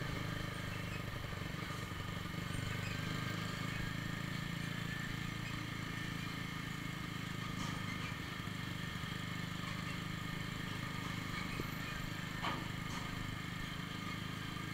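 Steady engine drone and road noise from a sport motorcycle cruising in traffic, with a heavy truck running just ahead.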